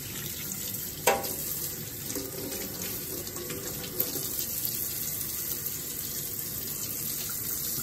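Tap water running steadily into a stainless steel sink as metal nail tools are rinsed under the stream, with a sharp clink about a second in and a smaller click about four seconds in.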